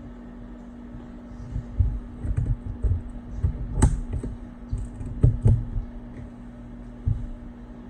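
Irregular small taps and clicks of hand tools and fingers working the glass digitizer of an iPad mini 2, with one sharper click just before the middle, over a steady low hum.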